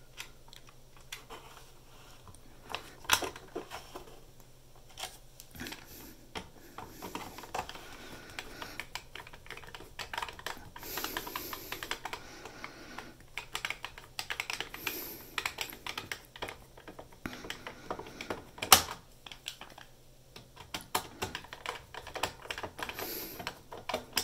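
Irregular small clicks, taps and scrapes of hard plastic and metal parts being handled and fitted on a PS4 Slim's hard-drive bay, with a sharp knock about 3 seconds in and a louder one near 19 seconds.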